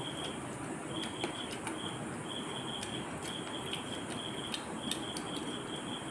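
A cricket chirping in repeated high-pitched trills with short gaps between them, over a steady hiss. Scattered light clicks and taps come from hands mixing rice on clay plates.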